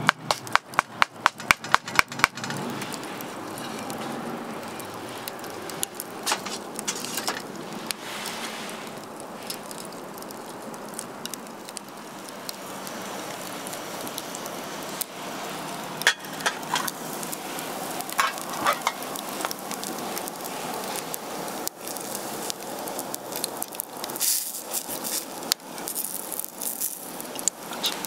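Food frying in a pan, sizzling steadily with scattered clicks and scrapes. In the first two seconds there is a quick run of about a dozen sharp knocks, roughly five a second.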